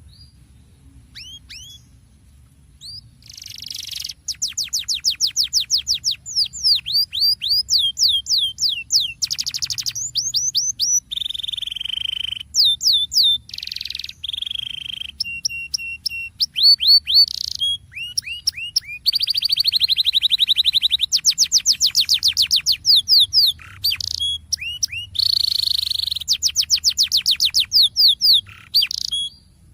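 Domestic canary singing a rolling song: long runs of rapid repeated notes and fast trills, changing from one trill type to another with brief pauses.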